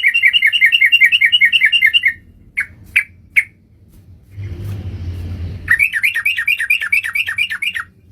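Yellow-vented bulbul (trucukan) lure call: fast runs of repeated down-slurred chirping notes, about six a second. The first run breaks off after about two seconds, a few single notes follow, and a second run starts near the end. A short rushing noise sits between the two runs.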